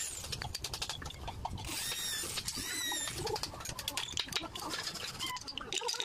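Rough, rapid scraping strokes of a cut bamboo tube being worked by hand, with fresh sawdust coming off its end. A few high-pitched chirps come in around two to three seconds in.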